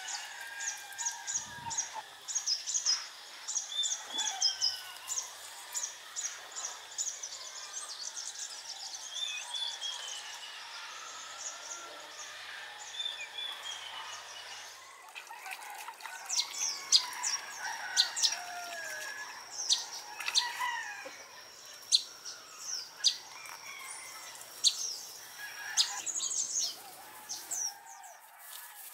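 Wild birds chirping and singing: quick high chirps with a falling whistled phrase every few seconds. About halfway through these give way to sharper, spaced chirps over a thin steady high tone.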